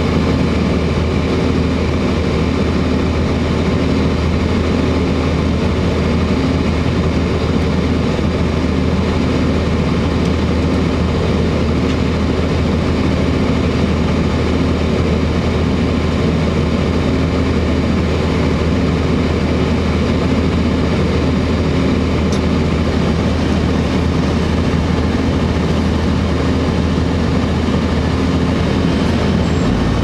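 Cummins ISC inline-six diesel engine of a 2002 Blue Bird CS transit bus idling steadily, heard from inside the bus as a constant low drone.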